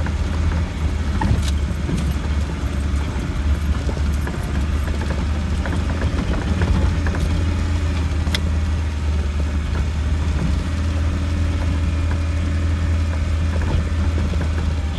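Land Rover 90's engine droning steadily, heard from inside the cab while it drives slowly over a rutted, muddy lane, with scattered light rattles and knocks from the bodywork.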